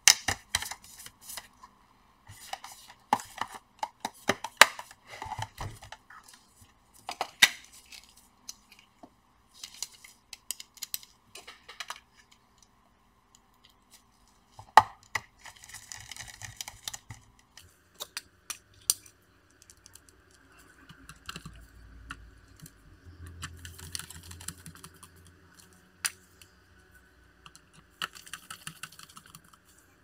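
Clicks, knocks and scrapes of a laptop's metal bottom cover being fitted and pressed into place by hand. There is rustling of gloved hands on the case, and a faint steady whine joins in a little past halfway.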